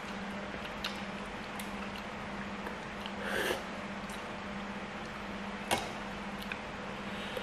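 Person eating instant noodles: one slurp of noodles a little over three seconds in, with chewing and small wet mouth clicks, and one sharp click near the end. A steady low hum runs underneath.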